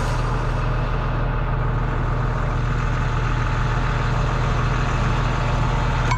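Diesel engine of a Mitsubishi Fuso Fighter FN62 truck idling steadily.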